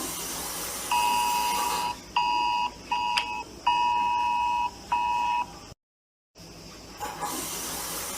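Emergency alert broadcast tone: a two-tone attention signal sounding in beeps of uneven length over a steady hiss. The sound cuts out for about half a second past the middle, then the hiss returns and the tone starts again near the end.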